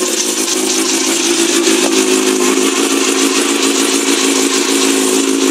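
Suzuki GSX-R750 SRAD fuel-injected inline-four motorcycle engine idling steadily on its first start-up after a project rebuild.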